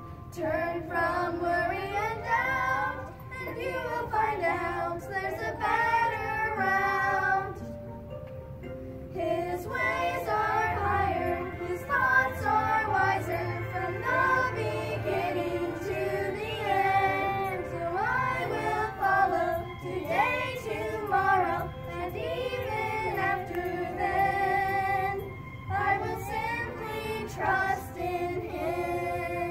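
A small group of children singing a song together, with a short break in the singing about eight seconds in.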